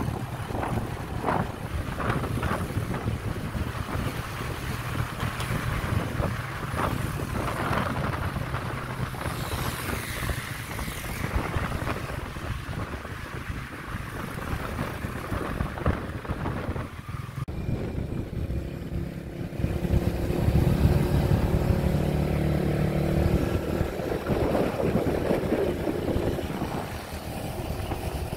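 Motorcycle running along a road at speed, with wind rushing and buffeting across the microphone. About two-thirds of the way through the wind eases and the engine's steady hum comes through more clearly.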